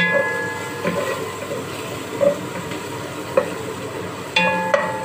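Chopped onion and garlic sizzling in hot oil in a metal pot while a wooden spatula stirs them, knocking against the pot now and then; a few of the knocks leave a short metallic ring.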